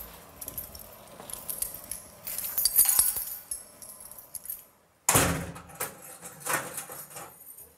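Keys jangling, then a heavy steel prison cell door slamming shut about five seconds in, followed by a second, lighter clunk.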